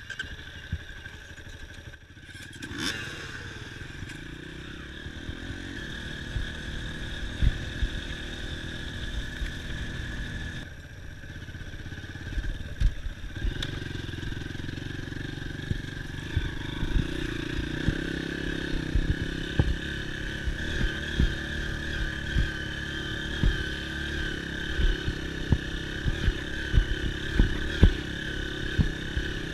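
Dirt bike engine running while riding, easing off briefly about two seconds in and again around eleven seconds in, with frequent sharp knocks and rattles throughout.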